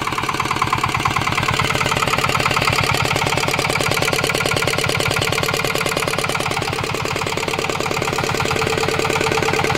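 Mitsubishi D7 single-cylinder diesel engine running steadily, its firing strokes coming as a fast, even chugging. It sounds solid and smooth, a sign of a healthy engine that is not smoking.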